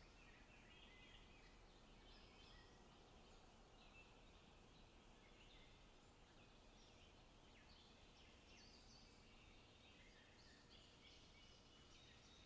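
Songbirds singing faintly in a forest: many short overlapping chirps and trills, thinning out briefly midway, over a low steady background hiss.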